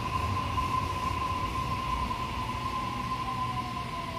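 Sydney Trains double-deck electric passenger train running past on the rails, with a steady high whine throughout. From about three seconds in, a lower tone slides down in pitch.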